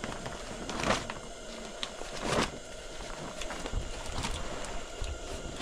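Plastic tarp rustling and crinkling as it is lifted and spread out, with two louder swishes about one and two and a half seconds in.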